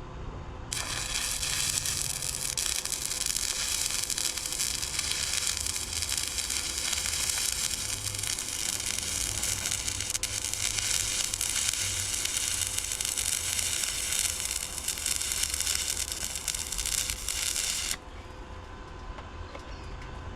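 Electric arc welding on a steel trailer frame: a continuous sizzling, crackling arc held for about seventeen seconds as a bead is laid, starting about a second in and cutting off sharply near the end.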